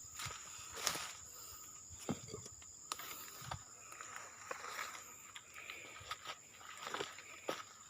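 Steady high-pitched insect buzz, with scattered faint clicks and knocks; no chainsaw running.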